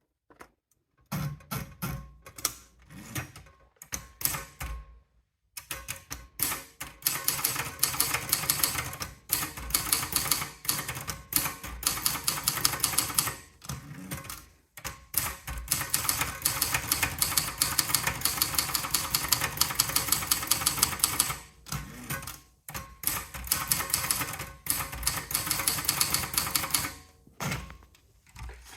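Sperry Remington 10/30 typewriter being typed on: rapid runs of key strikes lasting several seconds, broken by a few short pauses.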